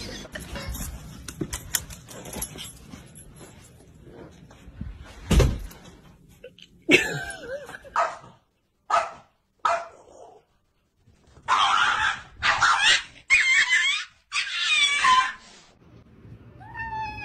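A small dog barking: a few short barks, then four longer ones in a row in the second half. A single thump comes about five seconds in, and a few short rising chirps near the end.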